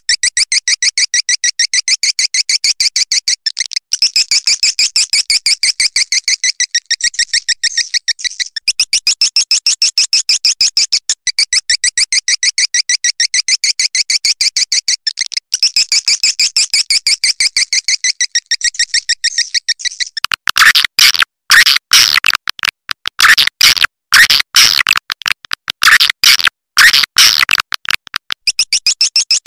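Swiftlet lure call, played to draw swiftlets to a nesting house: high twittering chirps in quick, steady succession. About twenty seconds in it changes to louder, harsher chirps in choppy, irregular bursts.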